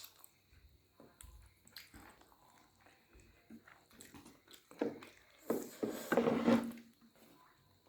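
Close-up chewing and biting while eating chow mein with dried buffalo meat (sukuti): small wet mouth clicks at first, then louder eating noises in the second half.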